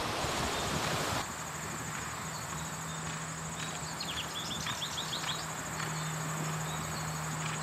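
A Thoroughbred horse cantering on grass, its hoofbeats faint under a steady high insect trill and a low steady hum. A short run of chirps comes a few seconds in.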